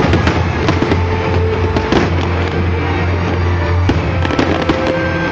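Aerial fireworks bursting with dense crackling, over loud music with a steady low bass note.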